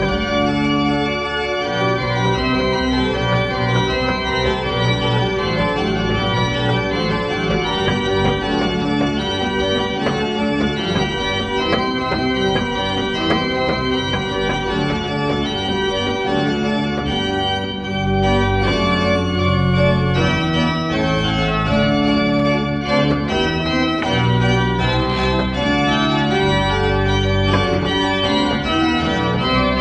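Church pipe organ playing a piece of classical music in full sustained chords. The pedal bass comes in heavier and the sound grows louder a little past the halfway point.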